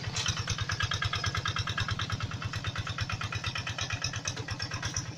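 Tractor engine running steadily with a rapid, even chug of about ten beats a second.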